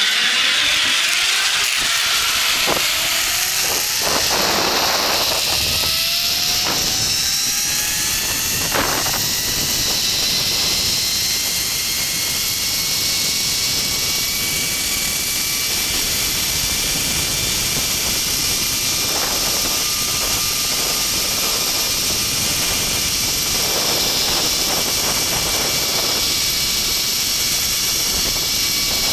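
Zipline trolley pulleys running down the steel cable: a high whine that rises in pitch over the first several seconds as the rider picks up speed, then holds steady, over a constant rush of wind on the microphone.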